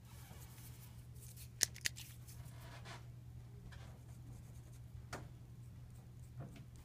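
A blade scraping the cane tip of a double reed over a metal plaque slipped between its blades: light scratchy rasps, with two sharp clicks about one and a half seconds in and another a few seconds later.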